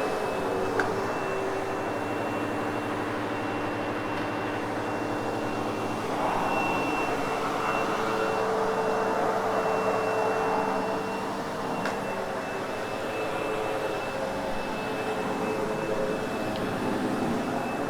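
Sebo X8 upright vacuum cleaner running steadily over a loop carpet, with a high, steady motor whine over the rush of air. The sound gets rougher and louder about six seconds in and eases again a few seconds later.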